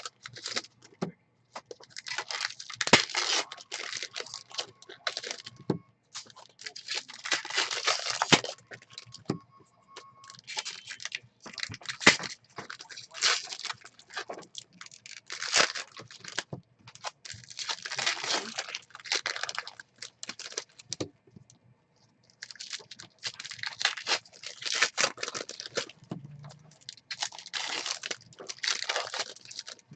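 Trading card packs being torn open and cards handled: repeated irregular crinkling and tearing rustles of foil and plastic wrappers.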